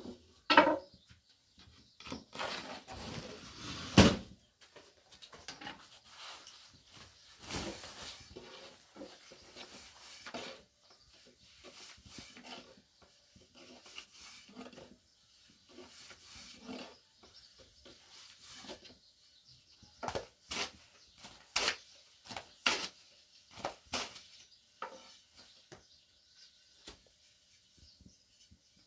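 A long, thin wooden rolling pin rolls out flatbread dough on a low round wooden board, giving irregular wooden knocks and clacks with softer rolling and scraping between them. One sharp knock comes about four seconds in, and a run of knocks comes about two-thirds of the way through.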